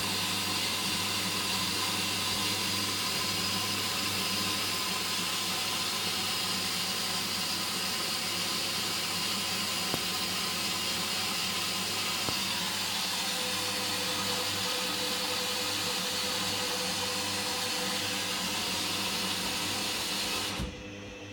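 Hoover Dynamic washing machine taking in water during its first rinse: a steady hiss of water through the inlet and detergent drawer over a low hum. The hiss cuts off suddenly near the end as the fill stops.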